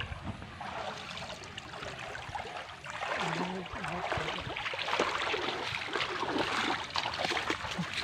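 Water splashing and sloshing as people wade through shallow muddy water, pushing a heap of leafy water plants along. The splashing is irregular and gets louder and busier from about three seconds in.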